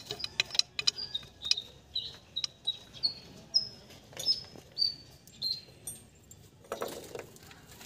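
A small bird chirping over and over in short high notes, about two a second. Scattered sharp clicks and a brief rustling clatter come about seven seconds in.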